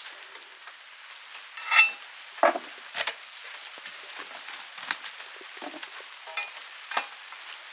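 Steady rain falling, a fine hiss with scattered sharper taps and clicks of drops striking nearby surfaces, a few louder than the rest about two and three seconds in.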